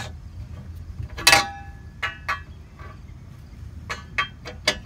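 Metal clanking as a steel tube is fitted against the bolts and rods of a homemade wheel rig: one loud, briefly ringing clank about a second in, then several lighter knocks, with a few quick ones near the end.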